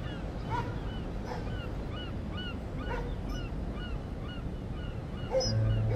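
Outdoor ambience: a small bird chirping over and over in short, evenly spaced notes, with a few louder short animal calls now and then. A low steady hum comes in near the end.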